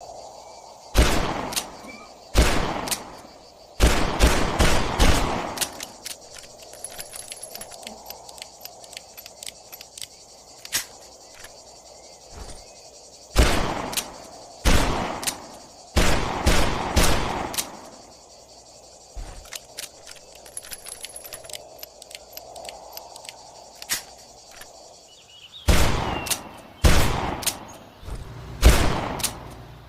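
Smith & Wesson Model 29 .44 Magnum revolver firing about a dozen shots, singly and in quick pairs or clusters, with pauses between groups; each shot is followed by a rolling echo.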